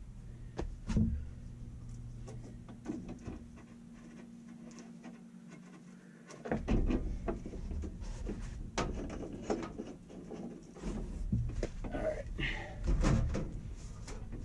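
Intermittent knocks and clatter of installation hardware being handled, denser from about six and a half seconds in, over a steady low hum that stops near the end.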